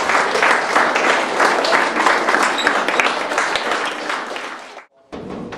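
Audience applauding, the clapping fading and then cutting off abruptly near the end.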